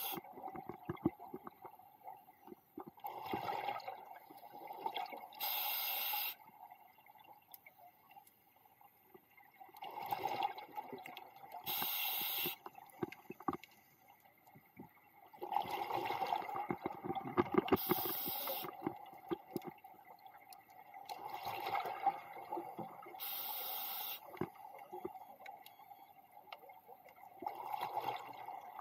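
Underwater scuba breathing through a regulator: bursts of exhaled bubbles gurgling, each followed by a short hiss of inhalation, in a slow cycle of about one breath every six seconds.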